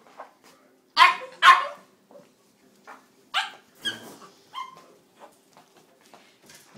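A puppy barking: two loud, sharp barks about a second in, then three smaller, higher barks a couple of seconds later.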